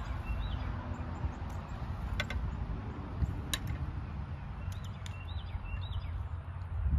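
Low rumble of wind on the microphone, with a small bird chirping a few times near the start and again near the end. A few sharp clicks of a metal fork against a ceramic bowl and plate.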